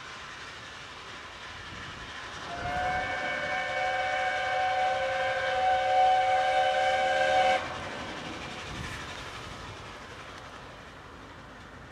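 Steam locomotive whistle, a chord of several tones blown once for about five seconds and cut off sharply, from an ex-South African NGG16 Garratt narrow-gauge locomotive. Under it the approaching train runs on steadily.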